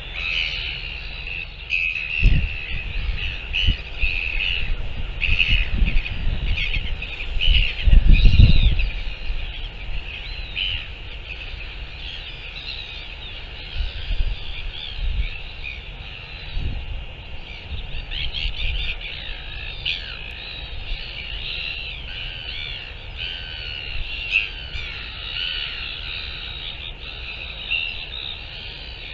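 Many birds calling and chirping together, with short overlapping chirps and gliding calls throughout. Gusts of wind buffet the microphone over the first several seconds, strongest about eight seconds in.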